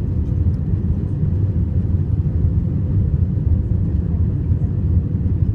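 Airbus A320 cabin noise in descent, heard from a window seat: a steady low rumble of engines and airflow with a faint steady hum.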